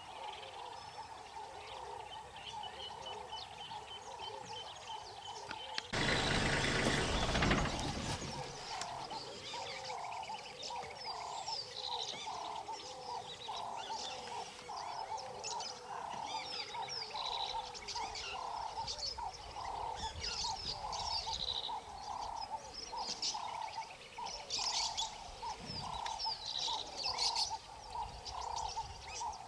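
Birds calling in open savanna: a low note repeats about one and a half times a second, with higher chirps scattered over it. A brief loud rush of noise comes about six seconds in and lasts around two seconds.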